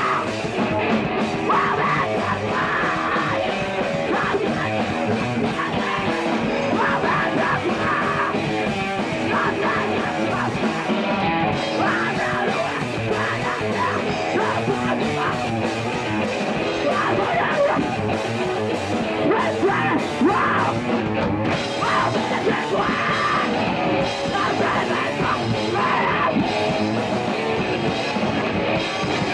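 Live punk rock band playing loud, with electric guitar, drums and shouted vocals coming in and out over the playing.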